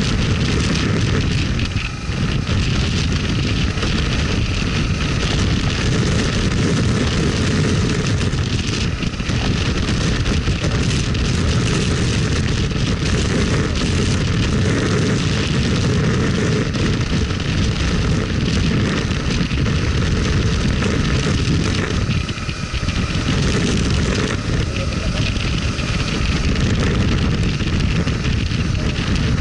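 Steady rush of wind buffeting the microphone of a camera on a motorcycle riding at speed, with the bike's engine and road noise underneath. The level dips briefly about two seconds in and again near the end.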